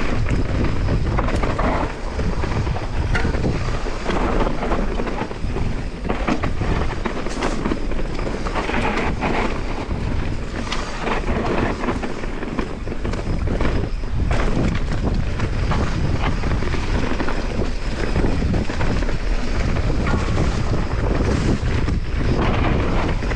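Mountain bike descending a dirt trail at speed: wind buffeting the camera's microphone over the rolling of knobby tyres on dirt and dry leaves, with frequent sharp knocks and rattles from the bike over bumps.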